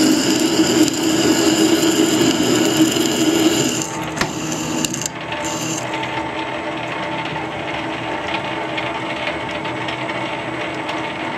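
Harrison lathe running under power while a single-point tool cuts an internal screw thread in a chuck back plate, a steady, ringing cutting sound. About four seconds in the cutting sound drops away with a sharp click, leaving the lathe's quieter running.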